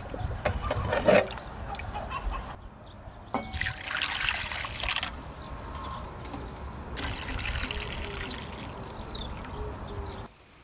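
Chicken-and-ginseng broth ladled out of a cast-iron cauldron and poured into a bowl, splashing and trickling in three pours, over a steady low rumble.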